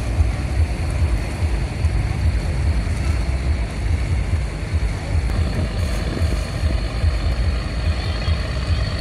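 Tugboat's diesel engine running with a steady low rumble, with a thin high whine growing stronger near the end.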